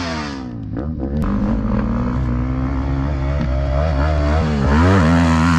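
Dirt bike engine running close by. Its pitch drops away in the first second, then it rises and falls with the throttle.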